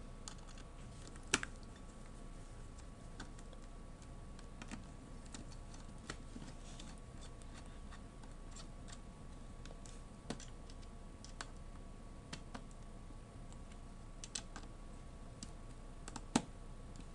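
Small screwdriver driving screws into a laptop's CPU heatsink: scattered faint clicks and taps of metal on metal, with one louder click about a second in.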